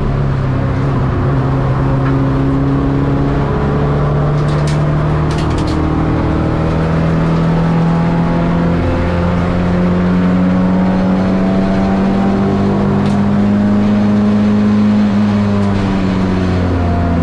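Ford Escort XR3's four-cylinder CVH engine under racing load, heard from inside the cabin: the note climbs slowly, steps up sharply about nine seconds in, climbs again and drops near the end. A quick cluster of sharp clicks sounds around five seconds in.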